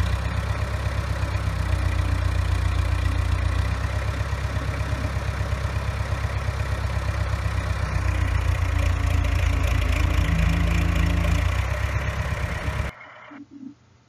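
Diesel engine of a telehandler running steadily with an even low throb while the machine holds its load on the boom. It cuts off abruptly about 13 seconds in.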